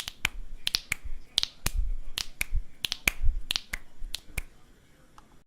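A person snapping their fingers in a fast run of triple snaps: sharp snaps, several a second, that stop about four and a half seconds in.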